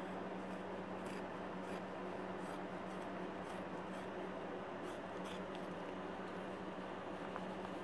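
Scissors cutting through layers of fabric and stabilizer, a series of short snips at uneven intervals over a steady low hum.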